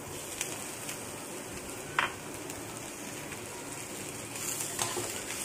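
Chopped tomatoes and sliced onions sizzling in hot oil in a kadhai: a steady frying hiss with a few sharp clicks.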